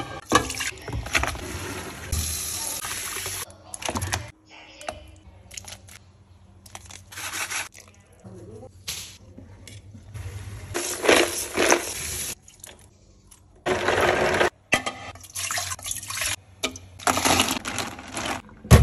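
Kitchen sounds of soup cooking in short clips cut one after another, mostly liquid sloshing and bubbling in pots of broth. A sharp knock comes right at the start.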